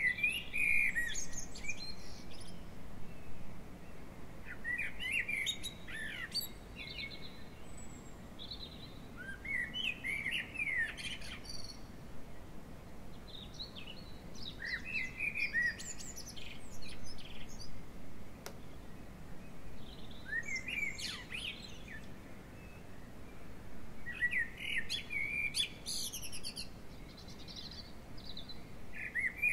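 A songbird singing short, quick phrases of high chirps and trills, each about one to two seconds long, repeated every four to five seconds.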